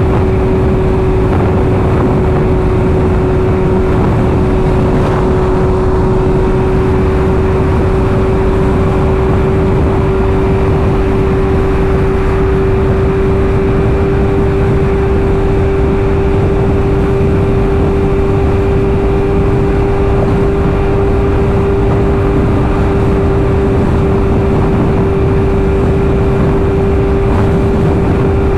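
BMW S1000RR's inline-four engine running at a steady cruising speed, one unchanging engine tone under heavy wind rush on the microphone.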